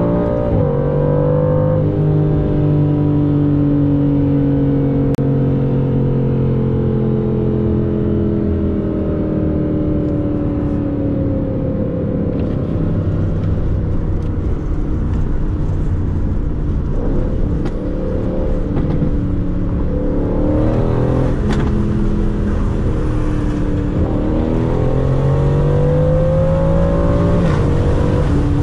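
Aston Martin Vantage's twin-turbo 4.0-litre V8 under way. Just after the start the revs drop in an upshift, and the engine then holds steady revs that slowly fall for several seconds, with road noise coming up. Near the end there are two pulls with rising revs, each cut off by a gear change.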